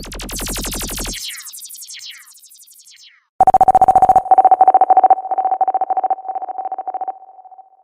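Electronic DJ sound effect: a buzzy synth sound trails off in echoes, then a steady dial-tone-like beep sounds in four chunks of about a second each, rapidly stuttering, and fades away at the end.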